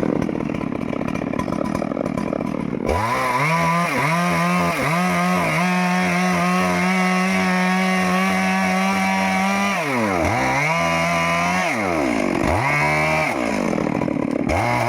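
Stihl MS 382 two-stroke chainsaw running, rising to a steady high-pitched scream about three seconds in. Near the end its revs drop and climb back up several times.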